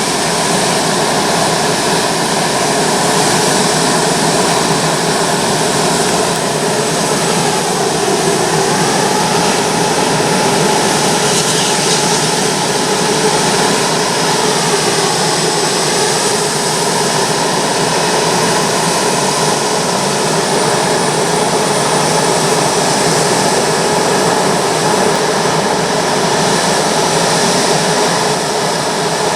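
Jet engines of a Boeing 787-9 airliner running loudly and steadily, with faint whining tones that dip in pitch and rise again twice.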